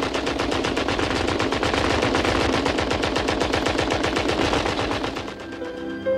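Water-cooled machine guns firing long sustained automatic bursts, shots following each other rapidly and evenly. The firing fades about five seconds in as music comes up.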